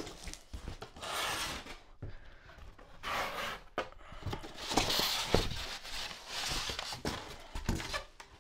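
Cardboard and styrofoam packing being handled as a box is slid open and its foam inserts are pulled out: several stretches of scraping and rubbing, with a few light knocks.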